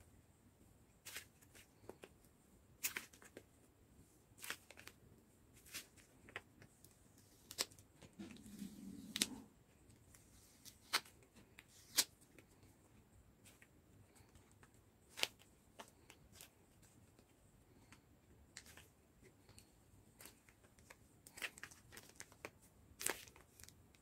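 Homemade balloon fidget toys, small filled latex balloons, squeezed and rolled in the hands, giving faint, irregular crackles and clicks. A brief soft rubbing sound comes about a third of the way in.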